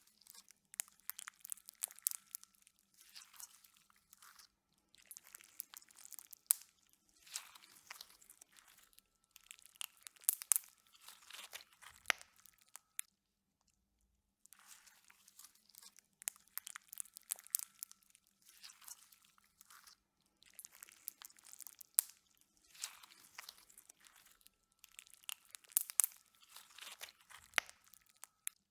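Slime being squeezed and pressed by hand, giving many small crackling pops in repeated bouts about a second long, with a short pause near the middle.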